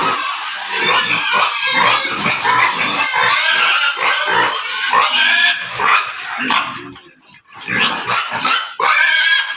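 Pigs squealing and grunting, several calls overlapping, with a short lull about seven seconds in.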